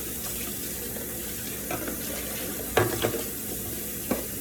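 Kitchen faucet running into the sink in a steady hiss, with about three sharp knocks of dishes being handled, the loudest around three seconds in.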